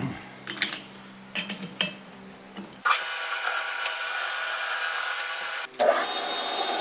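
Metal lathe controls click a few times, then about three seconds in the geared-head lathe starts up and runs with a loud, dense whine of many steady tones, spinning a steel tube in its six-jaw chuck for facing and chamfering. The sound dips briefly near six seconds, then carries on.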